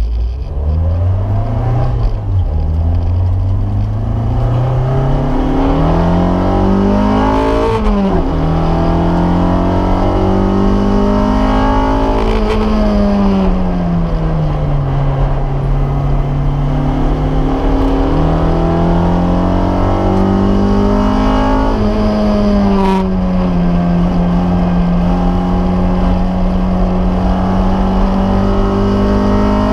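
Toyota MR-S's 2AR-FXE four-cylinder engine, heard from inside the cabin, accelerating hard through the gears. Its pitch rises with a sharp drop at each upshift, falls away as it slows for a corner, then climbs and holds at high revs.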